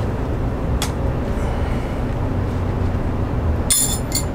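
Metal hand tools clinking as they are moved about on the floor, with one bright, ringing metallic clink near the end, over a steady low hum.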